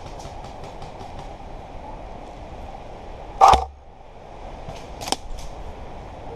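Airsoft guns firing: the end of a rapid string of shots at the start, a loud bang about three and a half seconds in, and a few quick sharp shots about five seconds in.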